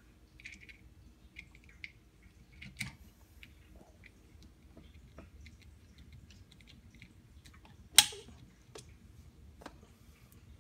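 CDI torque screwdriver tightening a terminal screw on an AlumiConn aluminum-to-copper connector: faint scraping and small clicks as the screw turns, then one sharp pop about eight seconds in as the driver clicks out at its set torque.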